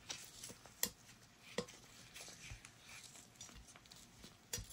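A few faint, scattered clicks and taps of a screwdriver and small steel parts on a revolver frame while the cylinder release screw is backed out.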